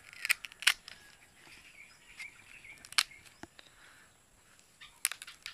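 Several sharp crisp snaps and clicks from a green banana leaf stalk being cut and notched by hand. The loudest come about half a second in, just before one second in and at three seconds.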